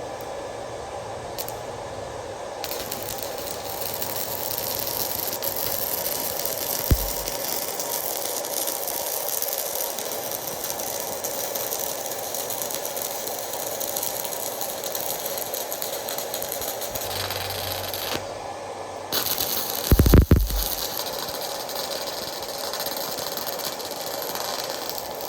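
Electric arc of a Fitinhot handheld 120-volt stick welder set to 80 amps, striking a couple of seconds in and burning as a steady crackling hiss while a bead is run. The arc breaks off for about a second near the three-quarter mark and is struck again; two low thumps stand out, the louder one just after the restrike.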